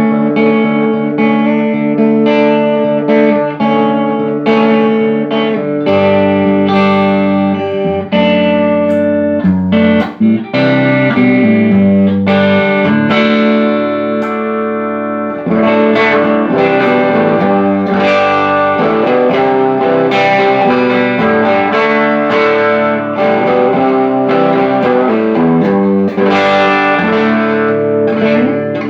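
Electric guitar played through a Laney Cub12 valve combo amp with EL84 output valves: a continuous run of picked notes and chords. The amp is producing sound again after its blown output transformer, shorted EL84 and faulty bias supply were repaired.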